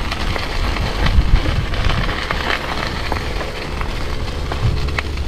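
Rattlesnake rattling its tail: a continuous dry, crackling buzz, over low rumble from wind on the microphone.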